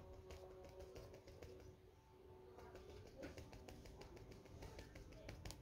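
Faint crinkling and light ticking of a thin plastic bag worked between the fingers as sulfur powder is shaken out of it, growing busier about halfway through.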